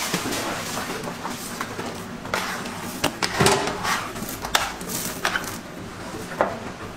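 Bread dough being worked on a granite countertop with a metal bench scraper: scraping against the stone, with several irregular knocks and thumps, the loudest cluster about halfway through.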